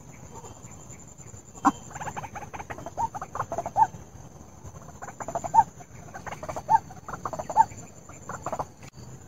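White-breasted waterhen calling in two bouts of quick repeated notes, the first starting about two seconds in and the second a little past the middle. A steady high thin tone runs underneath.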